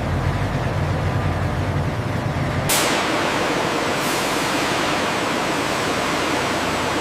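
Steady factory machinery noise: a low rumble with a haze over it that changes abruptly, about three seconds in, to an even hiss.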